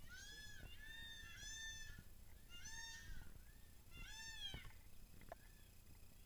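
Faint peacock calls: a string of about five short, meow-like calls, each rising and falling in pitch, in quick succession over the first four and a half seconds.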